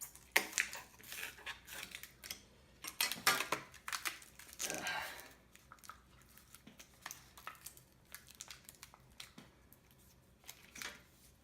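A swollen, glued-in laptop battery being forced out of a MacBook Pro's case: adhesive tearing and crinkling scrapes, heavier in the first half, then lighter scratches and clicks.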